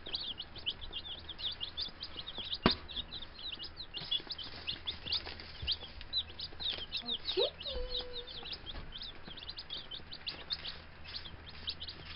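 A brood of baby chicks (Rhode Island Reds, Gold Stars and Buff Orpingtons) peeping continuously, many short high peeps overlapping one another. A single sharp click stands out about two and a half seconds in.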